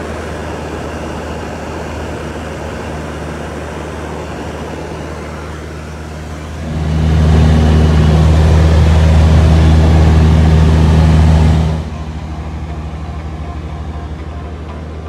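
Aero Commander Darter's single piston engine and propeller droning steadily in cruise, heard inside the cabin. The drone swells noticeably louder for about five seconds in the middle, then drops back to its earlier level.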